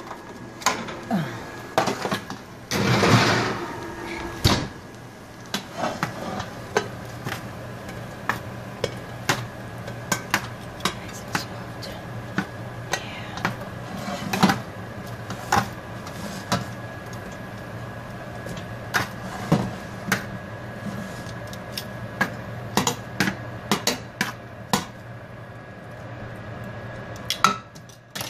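Metal tongs clinking and scraping against a metal baking pan and a stainless steel pot as meatballs are moved from one to the other: many short sharp clinks, with louder clattering in the first few seconds. A steady hum runs underneath.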